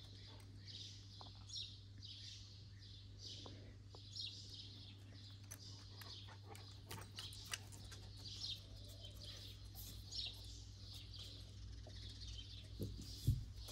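Small birds chirping over and over, faint, over a steady low hum. There are scattered light clicks, and a couple of low thumps near the end.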